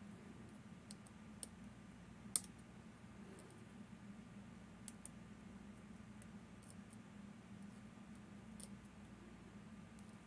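Faint, scattered metallic clicks of picking tools working the levers inside a Fichet 787 eight-lever lock, with one sharper click a little over two seconds in. A low steady hum sits under them.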